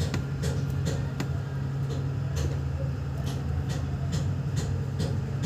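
Steady low hum with light clicks or ticks, roughly one or two a second.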